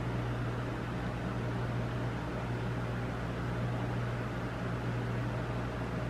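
A steady low hum over an even hiss, like a motor or fan running, with no separate knocks or calls.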